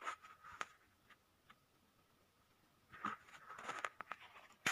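Banknotes being gathered up by hand: short bursts of paper rustling and scraping, at the start and again from about three seconds in, with a quiet stretch between.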